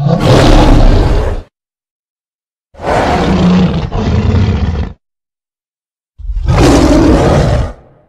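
Three roars, each about one and a half to two seconds long and cut off into dead silence. They are the custom sound-effect voice of the "Tyrannozilla Rex" hybrid kaiju, built by layering dinosaur, lion, tiger and other monster roars.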